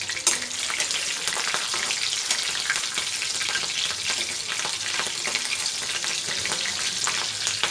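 Cumin seeds and slit green chillies frying in hot oil in a kadhai: a steady, crackling sizzle with fine spitting ticks throughout and one sharper tick just after the start.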